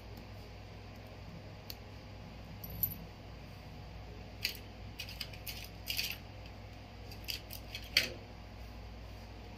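Scattered light metallic clicks and taps of small repair tools and phone parts being handled and set down on the mat, the sharpest about eight seconds in, over a low steady hum.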